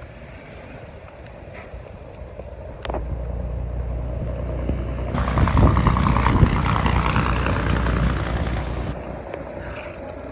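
A motor vehicle's engine rumble rises from about three seconds in, peaks around the middle with a loud rushing hiss, then fades again, as a vehicle passing close by.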